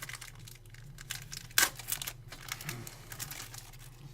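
Wrapper of a 2017 Panini Chronicles trading-card pack being torn open and crinkled: a run of quick crackles with one louder, sharper crack about one and a half seconds in, over a steady low hum.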